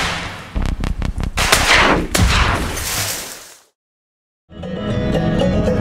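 A rapid, irregular run of sharp cracks like gunfire, with a whoosh near the middle, fading out about three and a half seconds in. After a short silence, background music starts near the end.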